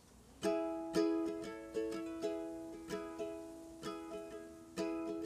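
Background music: the instrumental intro of a song. A plucked string instrument starts about half a second in and picks a repeating pattern of notes.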